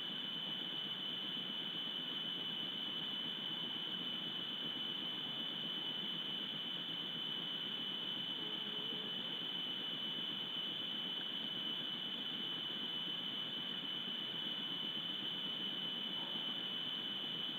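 Steady high-pitched whine over an even low hiss that never changes, typical of electronic noise on a webcam's microphone; no animal calls stand out.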